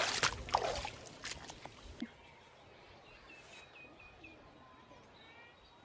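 Water splashing and trickling from a pipe outlet into a shallow channel. It stops abruptly about two seconds in. After that there is a faint outdoor background in which a small bird gives a quick run of short chirps, then a few rising notes.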